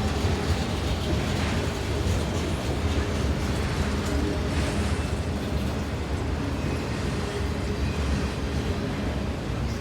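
Slow-moving intermodal freight train rolling past: a steady low rumble.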